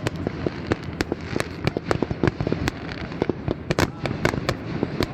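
Fireworks going off in rapid, irregular succession: many sharp bangs and pops, several a second.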